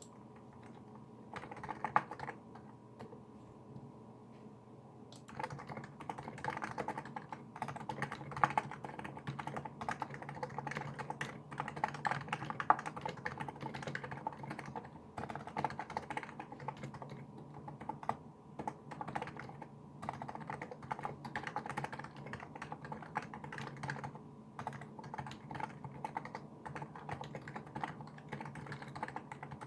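Typing on a Niz Plum Micro84 keyboard with SA-profile keycaps and electrostatic capacitive switches. A stroke or two comes first, then fast, continuous keystrokes from about five seconds in, over a faint steady hum.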